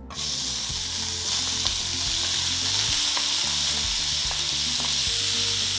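Raw minced chicken hitting piping-hot ghee in a pan: a loud sizzle starts suddenly as the mince goes in, then carries on steadily as it begins to fry. A wooden spatula clicks lightly against the bowl and pan a few times.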